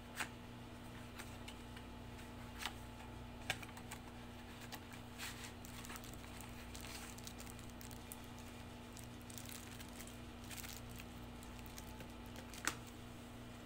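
Cardboard packaging and a plastic bag being handled: soft sliding and rustling with a few sharp taps and clicks, the loudest near the end. Under it runs the steady hum of an air-conditioning unit.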